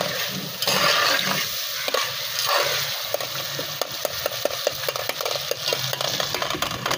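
Tomato-and-spice masala sizzling in a metal pot on high heat while a slotted metal spatula stirs and scrapes it. The spatula makes many short sharp clicks against the pot. The sizzle swells for a couple of seconds about a second in.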